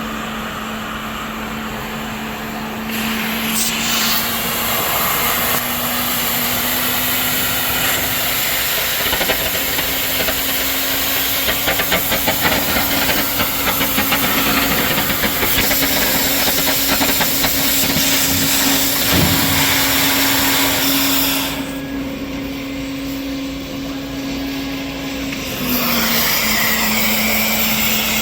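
Oxy-fuel cutting torch on a CNC cutting machine piercing and cutting 40 mm steel plate: a loud, steady hiss of the gas jet over a low hum. There is crackling for several seconds in the middle, and the hiss drops quieter for a few seconds before coming back near the end.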